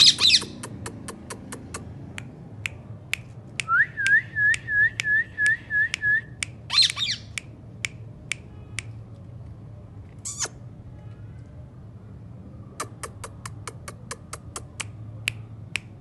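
Indian ringneck parakeets calling: a harsh screech at the start, then a quick run of about eight repeated whistled notes, another screech about seven seconds in and a short one near ten seconds, over a scatter of sharp clicks.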